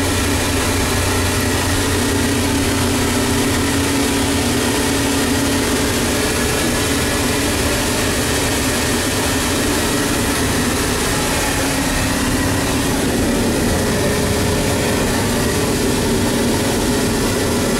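Steady loud whooshing noise with a low hum inside a train's toilet: the hand dryer blowing over the train's running noise. The hum's pitch shifts a little about two-thirds of the way through.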